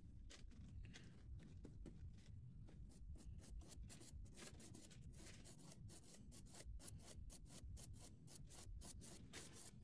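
A nearly dry wide flat paintbrush scrubbing back and forth over a 2 mm card model platform, blending the pastel weathering powders into it. The scratchy strokes come slowly at first, then settle into about four a second from about three seconds in.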